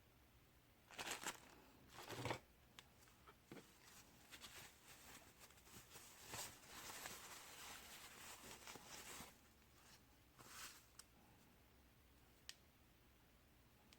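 Faint rustling and rubbing of hands handling the packaging, with two short louder rustles early on, a longer rustle through the middle and a small click near the end.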